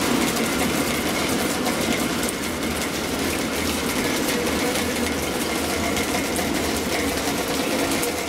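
Flake ice machine running: its rotating scraper shaves ice off the frozen drum wall, giving a steady mechanical drone with a dense fine crackle of ice breaking away.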